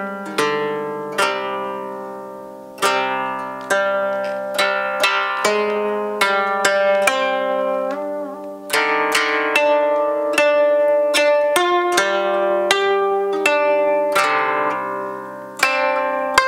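Koto being plucked in a slow phrase: single notes, each starting sharply and ringing as it dies away. One note wavers in pitch about halfway through.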